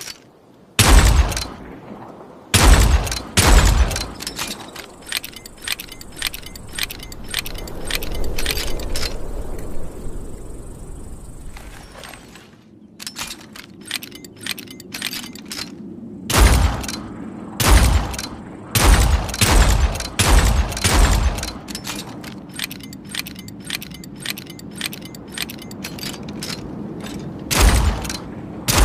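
Revolver sound effects: loud single gunshots, several close together, with stretches of rapid lighter clicking between them.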